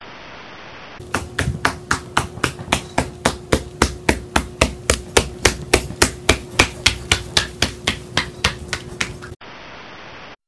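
A caique parrot hopping on a hardwood floor, its feet tapping in a quick, even rhythm of about four taps a second, over a faint steady hum. A steady hiss comes before and after the tapping.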